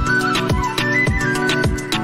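Background music: a flute-like melody over a steady electronic beat with deep kick drums.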